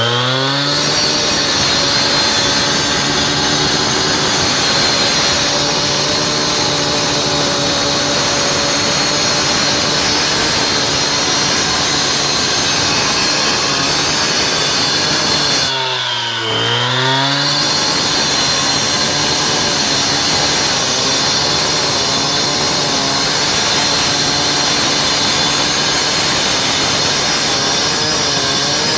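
Engine-driven cut-off saw with a 300 mm diamond blade, water-fed, running at high revs and grinding into a hard limestone paving slab, cutting the waste out of a curve. About sixteen seconds in, the engine briefly drops in revs and picks up again, and the revs fall once more at the very end.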